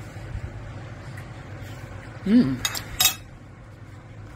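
A metal knife clinking twice against a plate, about a third of a second apart, while a bacon-wrapped meat-and-onion ring is cut. Just before the clinks comes a short hummed voice sound that rises and falls, over a steady low hum.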